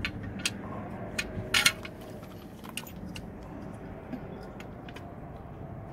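Metal clinks and clicks of nuts and tools being handled while U-bolt nuts are run onto a truck's new front axle. A few sharp clicks in the first two seconds, then fainter scattered ticks over a steady low rumble.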